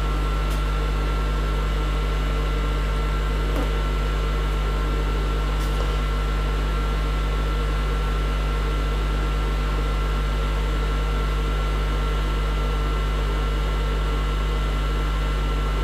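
A steady low hum with several faint steady tones above it, unchanging throughout, with a few faint clicks in the first six seconds.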